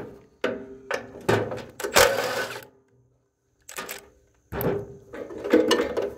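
Cordless impact wrench hammering in a series of short bursts, with a pause about three seconds in, as it runs the nuts off the bolts of a snowblower jackshaft bearing flange.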